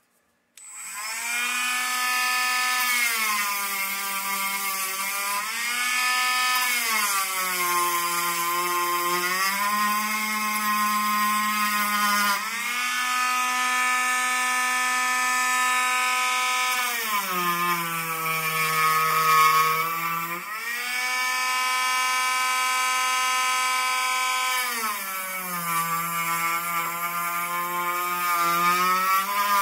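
Dremel rotary tool with a sanding drum grinding down a buggy's rear gearbox case to clear the camber link. Its high whine starts about half a second in and sags in pitch several times as the drum bites into the case, rising again as the load comes off.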